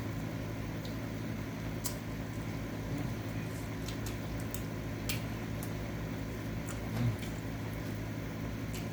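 Steady hum of an air-conditioning fan running in a small room, with a few faint clicks and a small knock about seven seconds in.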